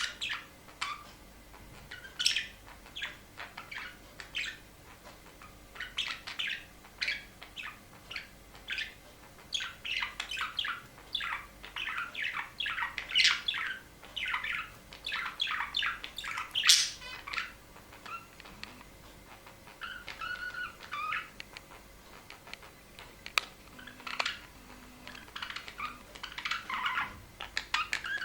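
Small caged pet birds chirping and twittering in many short, rapid calls, busiest in the middle stretch, with the odd harsher squawk.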